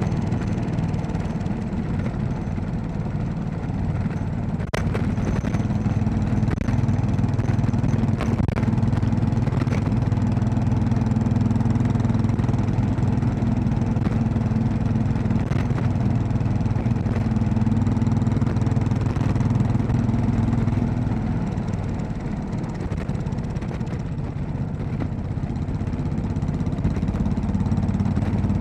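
Royal Enfield Classic 500's single-cylinder four-stroke engine running steadily under way. The engine eases off and quietens about two-thirds of the way through, then picks up again. There is one sharp click about five seconds in.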